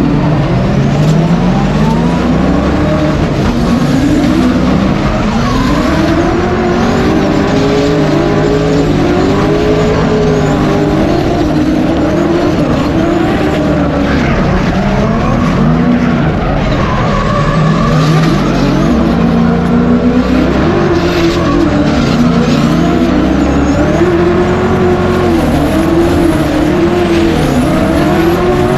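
Drift car engines revving hard, their pitch rising and falling every second or two, over the steady hiss and squeal of sliding tyres.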